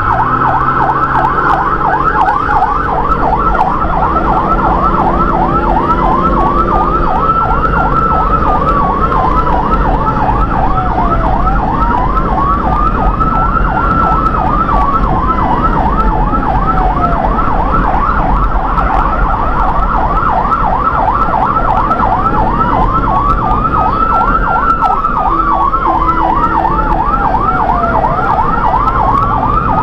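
Electronic emergency siren on the responding vehicle, sounding a fast yelp over a slower wail that rises and falls about every six seconds, heard from inside the cab over engine and road noise.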